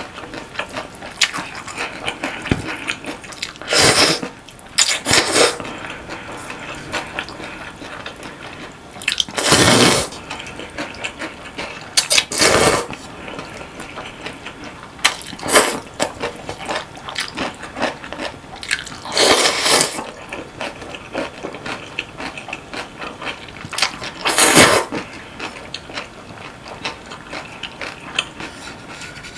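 Close-miked eating of naengmyeon (Korean cold noodles): chewing with small wet clicks, broken by about seven loud, brief slurps spaced a few seconds apart.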